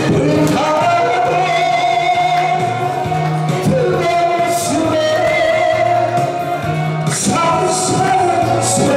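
A singer singing into a microphone over accompanying music, amplified through PA speakers in a large hall, holding long notes with a slight waver.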